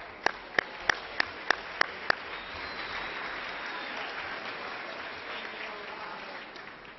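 Applause. For about two seconds, one person claps close to the microphone in single sharp claps, about three a second, and then the audience's applause swells into a steady wash that dies away near the end.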